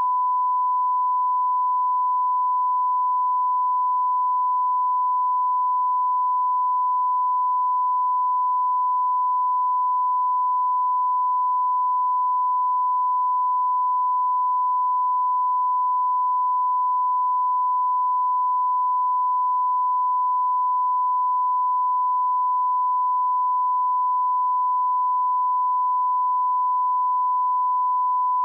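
Steady, unbroken 1 kHz reference tone, the line-up tone that goes with broadcast colour bars for setting audio levels.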